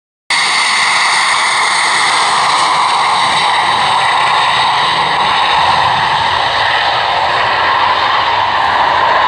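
Loud, steady jet noise of a Boeing 727's three Pratt & Whitney JT8D turbofans, with a high whine over it, cutting in suddenly just after the start.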